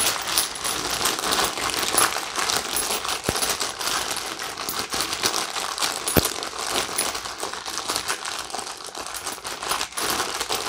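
Brass rifle cartridge cases (.223 and .308) clinking and rattling against each other inside a plastic zip-top bag, with the bag crinkling, as they are worked around by hand to coat them with spray-on case lube. It is a continuous patter of small clinks, with a couple of sharper ones.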